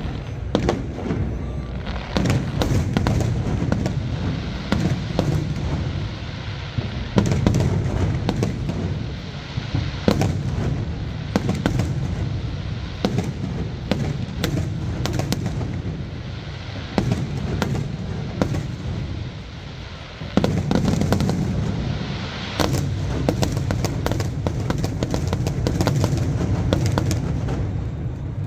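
Aerial fireworks display: a dense stream of bangs and crackles from bursting shells over a continuous low rumble. It eases off briefly about two-thirds of the way through, then a fresh, louder volley begins.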